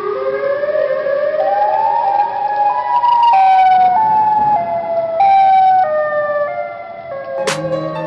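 Siren in a custom hockey goal horn track, winding up in pitch over about three seconds, then dropping in a series of short steps. Near the end a sharp hit lands and music with low notes comes in.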